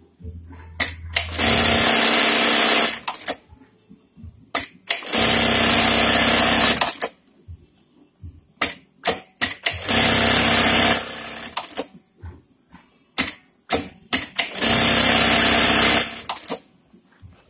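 Juki LK-1900 industrial bartacking machine sewing four bartacks in turn. Each is a fast, steady burst of stitching about a second and a half long, with sharp clicks between the cycles.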